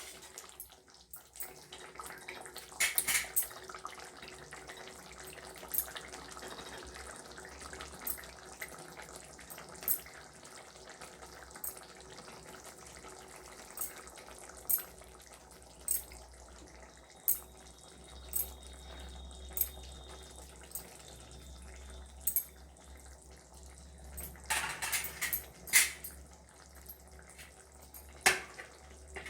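Masala gravy with brinjal pieces simmering in a kadhai: a steady low bubbling with sharp pops every second or two. A couple of brief clatters break in, about three seconds in and again near the end.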